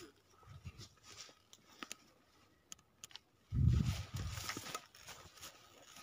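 Faint crunching footsteps and rustling in thin snow, with a brief low rumble on the phone's microphone about three and a half seconds in.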